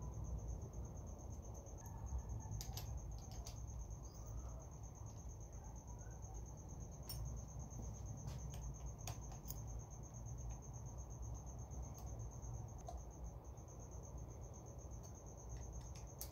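Faint, scattered clicks and taps of metal parts being handled as a motorcycle front brake master cylinder and lever are fitted to the handlebar, over a low hum and a steady high-pitched trill.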